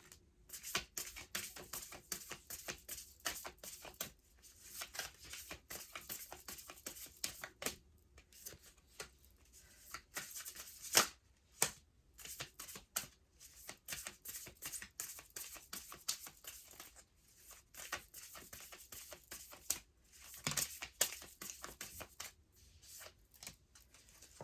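Oracle cards being shuffled by hand: a continuous run of soft, irregular card clicks and rustles, with a sharper snap about eleven seconds in.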